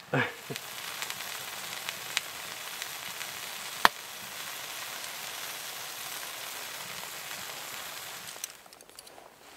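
Bacon and blueberry pancake batter sizzling in a pan on a wood stove, a steady hiss with a sharp pop about four seconds in. The sizzling stops shortly before the end.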